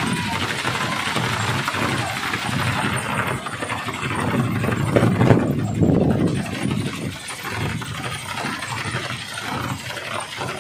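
Kolecer wind propeller spinning in the wind and giving a loud, deep droning rumble, the thunder-like sound it is known for, swelling and fading as it turns.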